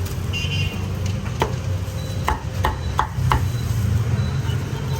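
Cleaver chopping crispy-skinned roast pork into small pieces: five sharp chops, the first alone and then four in quick succession, about a third of a second apart.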